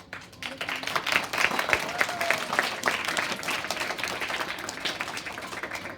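Audience of schoolchildren and teachers clapping after a speech. The applause starts at once, is strongest in the first few seconds and thins out toward the end.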